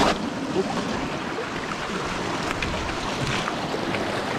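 Sea swell washing and foaming among shoreline rocks: a steady rushing of surf.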